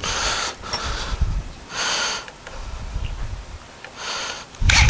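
Between screws: three short hissy noises while the next screw is set against a Western Red Cedar table leg, then a Ryobi cordless drill-driver starts driving the screw in near the end.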